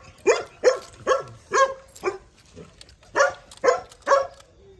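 A dog barking: a run of about five sharp barks, a pause of about a second, then three more.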